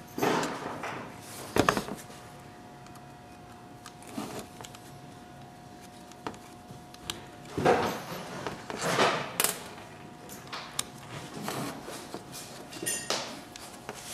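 Scattered clicks, knocks and rustles from handling a plastic steering-column stalk cluster while its screws are taken out with a small Torx driver, over a faint steady hum.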